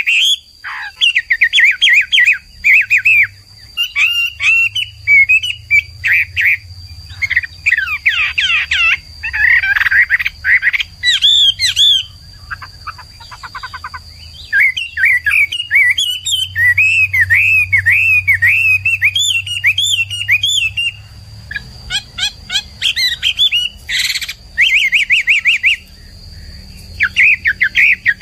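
Chinese hwamei (melodious laughingthrush, Garrulax canorus) singing a long, varied song of loud whistled phrases and rapid trills, broken by a few short pauses. A faint steady high-pitched tone and a low hum run underneath.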